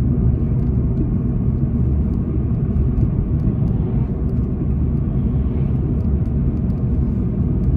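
Steady low rumble of engine and tyre road noise inside the cabin of a moving car.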